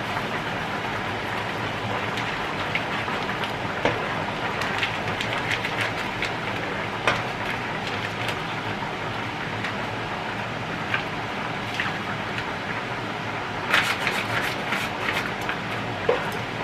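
A pan of goulash simmering with a steady bubbling hiss, while a spatula stirs it and knocks against the pan now and then, most busily near the end.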